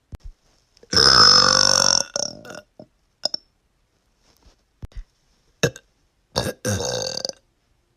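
A woman's deep burp: one long, loud burp about a second in lasting about a second, a few small clicks, then a shorter burp near the end.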